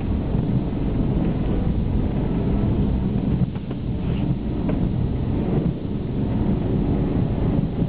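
Inside the cabin of a BMW E46 330xd Touring driving through 20 cm deep snow: a steady low rumble of the 3.0-litre straight-six diesel and the tyres ploughing through snow, with a few faint clicks about halfway through.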